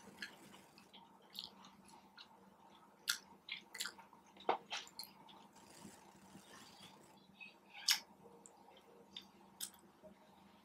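A person chewing a mouthful of food, with irregular smacking clicks of the lips and mouth; the loudest smacks come about three, four and a half and eight seconds in.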